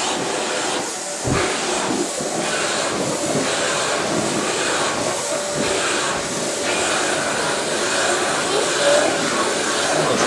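Vacuum cleaner running steadily, its brush nozzle stroked through a cat's fur, the noise of the suction rising and dipping slightly as the nozzle moves.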